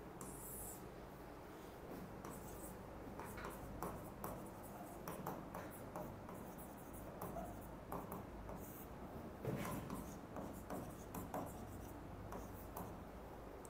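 Writing: a run of short scratching strokes, with a soft knock about nine and a half seconds in, over a low steady hum.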